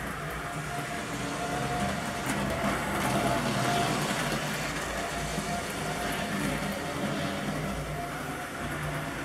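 Model train running on its track: a steady electric-motor hum over the rumble of wheels on rail, a little louder for a few seconds as it passes near.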